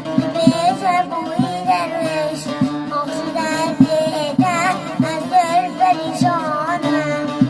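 A song: an ornamented, wavering melody line, most likely a solo voice, over a sustained instrumental accompaniment with a regular drum beat.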